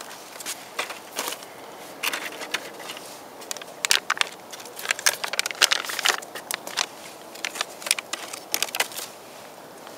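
MRE ration packaging crinkling and rustling as the pouches are handled: plastic and foil meal packets and the brown meal bag, with irregular sharp crackles, the loudest about four, six and nine seconds in.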